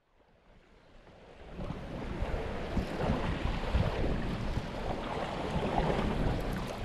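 Wind buffeting the microphone over the wash of the open sea around a small boat, fading in from silence over the first two seconds and then steady.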